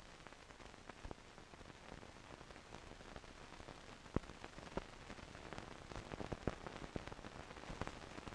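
Faint steady hiss with scattered crackles and clicks, a little busier after the middle: background noise of an old archival soundtrack with no live sound on it.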